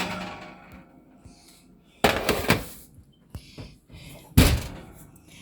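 Kitchen noises as a baked dish comes out of the oven: a short clatter about two seconds in, then a single loud thunk about four seconds in.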